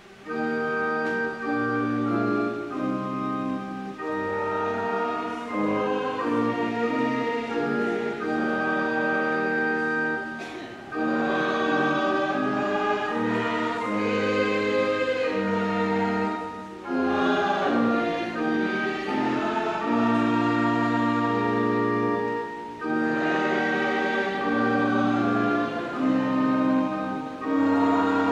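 A choir singing in long, held notes, with short breaks between phrases.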